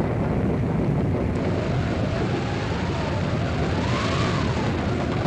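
Horses galloping, a dense run of hoofbeats, with a wind howl that rises and falls in pitch.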